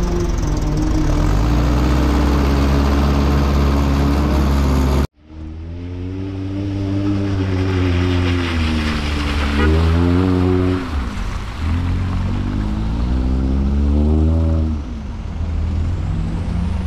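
Modified off-road 4x4 jeep engines running on a dirt trial course. The sound breaks off abruptly about five seconds in, then an engine revs up and down several times.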